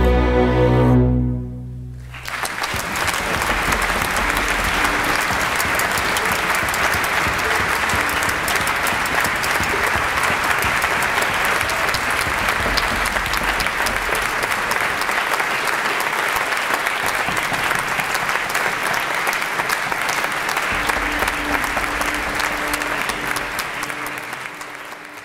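Solo double bass and orchestra holding a final chord, which cuts off about two seconds in, followed by steady audience applause that fades out near the end.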